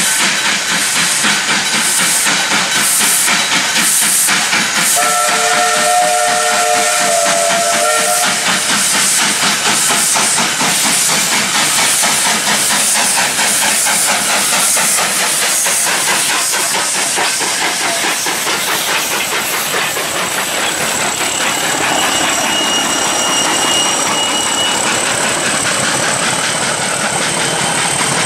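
W class steam locomotive working past under steam: a steady loud hiss of steam with quick exhaust beats, and a whistle blast lasting about three seconds, about five seconds in. The train rolls on past, with thin high steady squeals from the wheels and rails late on.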